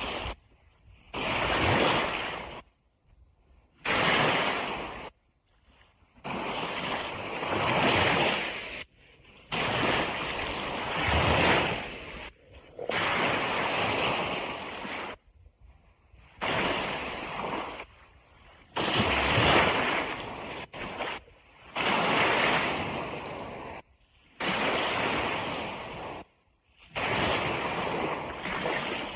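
Ocean surf washing on a beach, coming in repeated surges of one to three seconds, each broken off suddenly by a brief silence.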